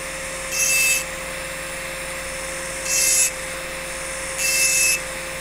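Rotary engraving tool running with a steady whine. Its rough diamond burr is grinding dry on crystal glass in three short hissing strokes: about half a second in, about three seconds in, and near the end.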